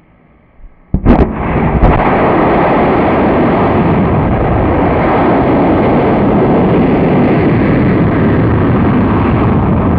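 Student-built rocket's motor igniting with a sharp crack about a second in and a second crack just after, then firing steadily and loudly as the rocket lifts off the launch rail.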